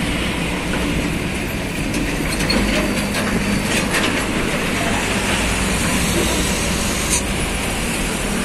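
Diesel container semi-trucks passing close by: engines running and the trailers rattling and clanking as they roll, with a steady low rumble.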